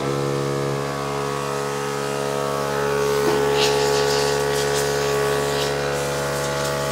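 Small portable air compressor, rated to only 4 bar, starting up and running with a steady motor hum. From about three seconds in, short hisses of compressed air from its blow-gun nozzle join it.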